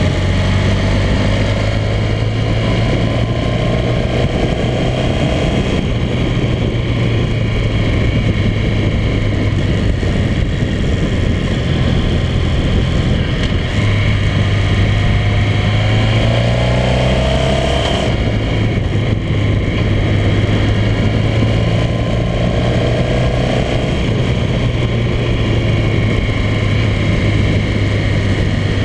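Motorcycle engine running steadily on a winding uphill road, its pitch rising about three times as it accelerates out of the bends, over a constant rush of wind and road noise.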